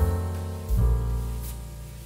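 Background piano music: a chord struck at the start and another about three-quarters of a second in, each fading away.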